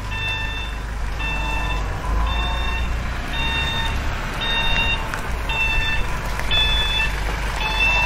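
Toy crane truck's electronic sound module beeping like a reversing alarm, about once a second, each beep about half a second long, over a low rumble.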